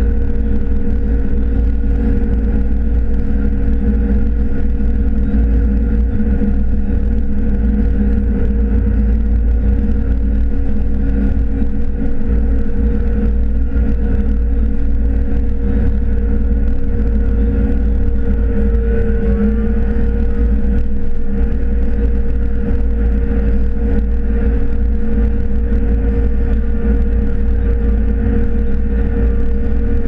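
2012 John Deere S680 combine harvesting corn with a 12-row corn head, heard from inside its cab: a steady low rumble with a steady mid-pitched whine. About 19 seconds in, a faint whine rises briefly.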